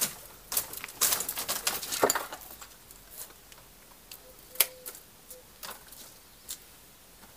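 Dry grapevine canes and twigs crackling and snapping as they are handled and pruned off the pergola. A dense run of clicks comes in the first two seconds, then a few scattered sharp snaps.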